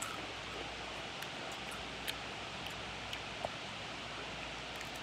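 Quiet steady hiss of room noise with a few faint clicks.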